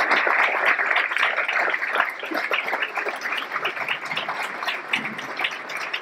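Audience applauding, the clapping dense at first and thinning out into scattered claps as it fades.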